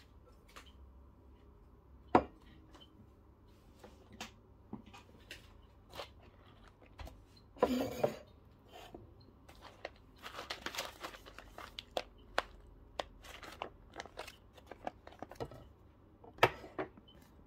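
Paper coffee-bean bag being handled: a loud rustle as it is set down about eight seconds in, then a run of crinkling and crackling with scattered small clicks and taps, and one sharp crackle near the end.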